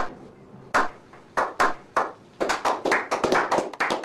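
Sharp hand claps: a few spaced out at first, then coming quicker and closer together from a little past halfway.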